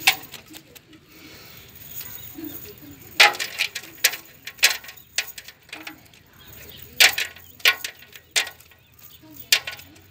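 Live shrimp flipping and tail-flicking in a shallow basin of water as a cast net is pulled out over them: scattered sharp flicks and wet clicks in small clusters, with the net rustling.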